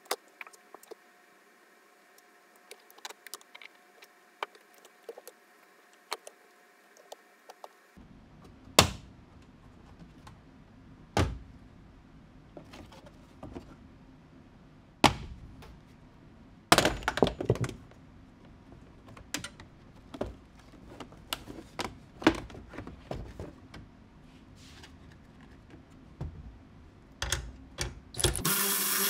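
Plastic interior trim being unclipped and pulled out of a Mazda MX-5 cabin: scattered clicks, knocks and thunks, a few of them sharp and loud. Near the end a cordless ratchet starts running steadily.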